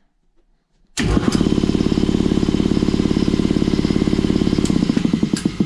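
Freshly rebuilt Ingersoll Rand T-30 2475 two-stage, belt-driven, splash-lubricated air compressor pump starting abruptly about a second in and running with a fast, steady chug, then fading near the end. This is its first start after the rebuild, pumping air with the outlet ball valve open, so it runs without building pressure.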